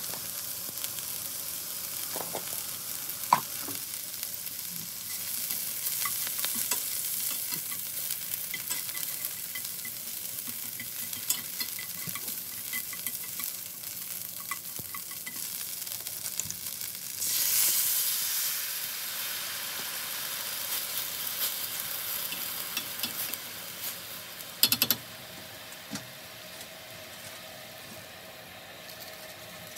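Gopchang pieces frying and sizzling in oil in an enamelled cast-iron pan, stirred with a wooden spoon that knocks against the pan now and then. About 17 seconds in the sizzling surges loudly as liquid hits the hot pan, then settles to a quieter simmering hiss.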